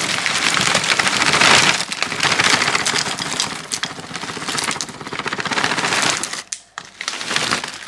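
Dry cinnamon cereal squares shaken out of a bag into a bowl: a dense, crackly rustle with many small clicks, loudest in the first two seconds and easing off after about six seconds.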